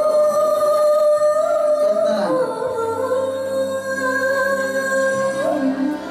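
Nepali Magar folk song playing for a dance: a melody of long held notes, the first for about two seconds, then a slightly lower one for about three, over a steady accompaniment.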